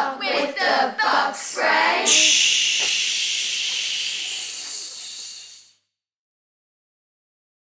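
Chanted voices finish a line, then a long vocal "shhh" imitating the hiss of a bug-spray can runs for about three and a half seconds and fades out, followed by silence.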